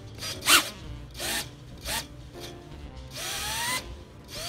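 Small 1104 brushless motors of a mini FPV quadcopter spinning up, a rising whine heard twice near the end. A few short sharp clicks come first.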